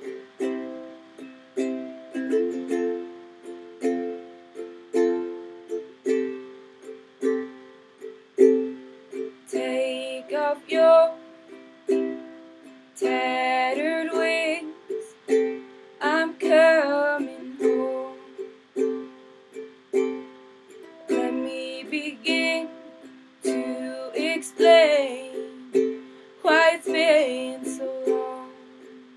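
Instrumental intro of an acoustic song: a steady fingerpicked pattern on a plucked string instrument. From about ten seconds in, a second melody line with sliding, bending notes joins in phrases.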